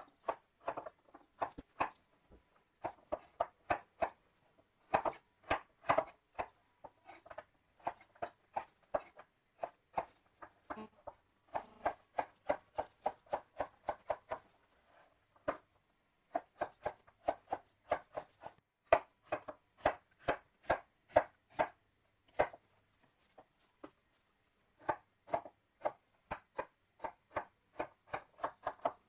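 Chef's knife dicing carrot and then turnip on a bamboo cutting board: runs of sharp knife strikes on the wood, several a second, broken by short pauses.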